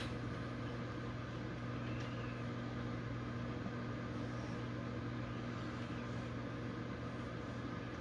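Steady low electrical hum of a running motor, with no knocks or bangs standing out.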